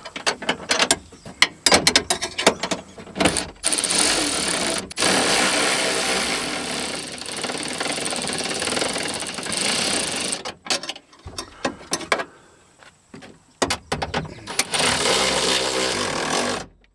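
Power driver running bolts into a truck door's window regulator mount: a few seconds of sharp clicks and knocks, then the tool runs for about five seconds, stops, and runs again for a couple of seconds near the end.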